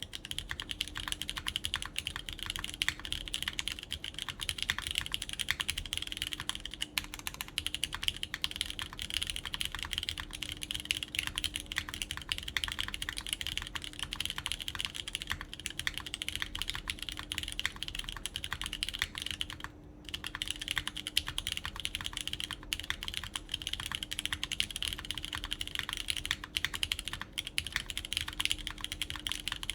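Steady, continuous typing on a QK Neo80 Cu custom mechanical keyboard in poron gasket mount, with lubed Cherry MX Orange switches, a polyetherimide plate and GMK Carbon keycaps. There is a brief pause about twenty seconds in.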